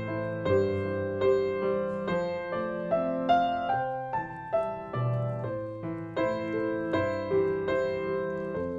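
Background piano music: a melody of single notes moving about every half second over held chords.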